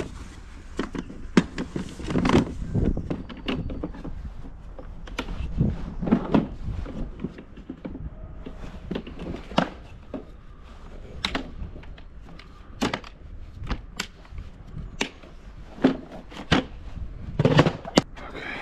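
A folding aluminium step stool being unfolded and set up: scattered metal clicks, clanks and knocks from its legs and hinges, with a few duller thumps.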